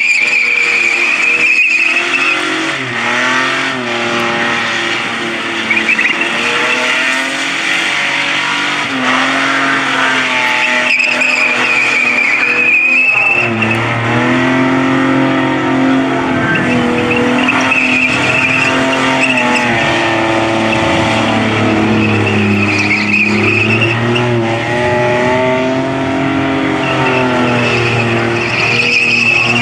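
Car doing a burnout: the engine is held at high revs, its pitch rising and falling, while the spinning rear tyres squeal on and off.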